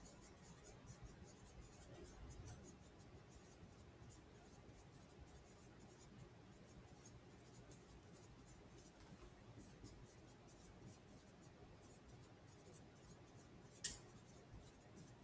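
Faint short strokes of a marker writing on a whiteboard, with one sharp click about 14 seconds in.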